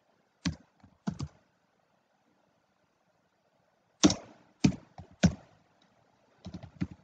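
Computer keyboard typing: separate keystrokes, a few near the start, then a pause, then a quicker run of keys in the second half.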